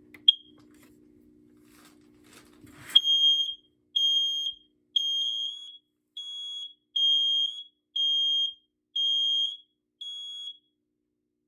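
Interconnected hardwired smoke alarms being tested: one short high beep, then after a click about three seconds in, a loud high-pitched alarm sounds in the temporal-three pattern (three beeps, a pause, three beeps). A second, quieter alarm beeps in the pauses, the sign that the interconnect is working.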